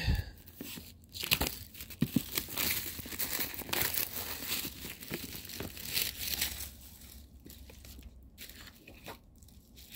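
Packaging on a disc box set being torn and crinkled open by hand: a dense crackle for about six and a half seconds, then quieter rustling as it is handled.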